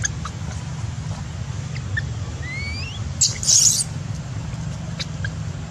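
Baby macaque squeaking: a thin rising squeak about two and a half seconds in, then a louder, shrill squeal lasting about half a second, over a steady low rumble.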